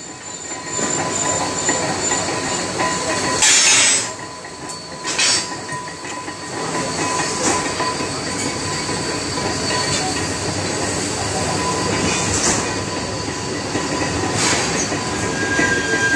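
Thread-cutting machine on a lathe bed running steadily, a dense metallic clatter with a thin steady whine and squeal-like tones. A short harsh burst comes about three and a half seconds in, with a few smaller ones later.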